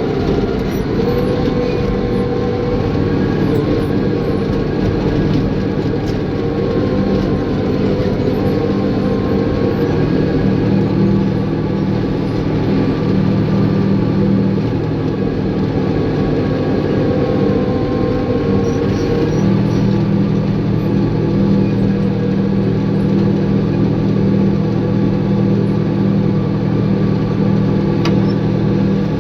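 Caterpillar bulldozer's diesel engine running steadily at working revs. Its low note grows stronger about two-thirds of the way through.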